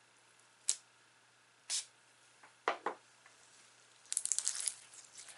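Slime being squeezed and poked by hand: a few separate squishy pops about a second apart, then a quick run of crackling pops a little past the middle.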